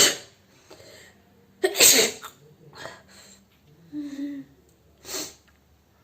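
A woman sneezing hard, set off by a handkerchief tip pushed into her nostril. One loud sneeze comes right at the start and another about two seconds in, followed by several shorter, weaker sneezing bursts and breaths.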